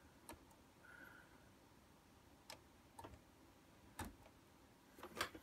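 Near silence with a few faint, scattered clicks, the clearest about four seconds in: a small screwdriver ticking against a CD laser pickup as its trimmer pot (laser power adjustment) is turned a little at a time.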